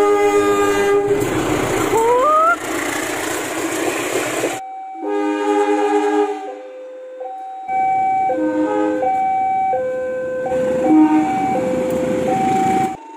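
Diesel locomotive multi-tone air horns sounding in chords. A long chord over train running noise, with a brief rising tone about two seconds in, stops abruptly about four and a half seconds in. A string of shorter horn blasts follows, jumping back and forth between different chords like a tune.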